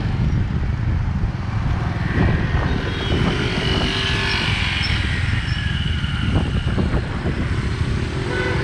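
Motor vehicle and road noise: a steady low rumble, with a few faint short higher tones in the middle.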